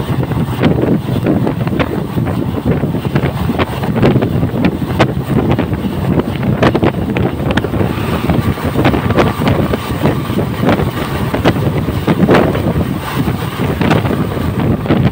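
Wind rushing over the microphone from a moving train, with the clatter of its wheels on the rail joints; partway through, an opposing passenger train led by a locomotive rushes past close by on the next track.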